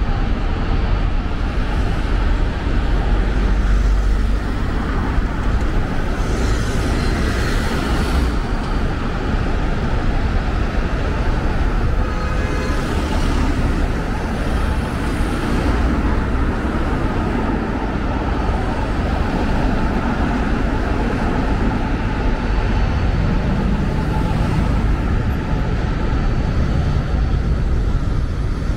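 Road traffic at a city junction: a steady rumble of engines and tyres, with several vehicles swelling louder as they pass close by.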